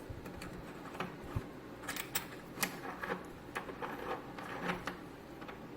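Scattered small clicks and taps from hands and tools working on a headphone cable while soldering its wires.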